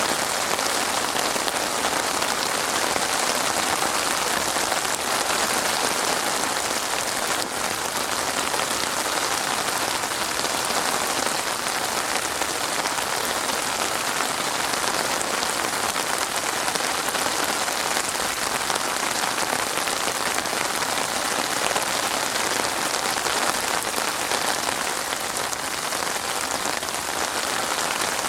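Steady rain falling and pattering on a surface, an even continuous hiss of many drops with no thunder.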